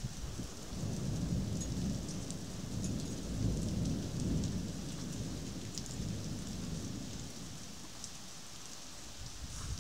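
Thunder rumbling for several seconds over steady rain: the rumble builds about a second in and dies away by around seven seconds. Under it is a continuous rain hiss with scattered drops ticking.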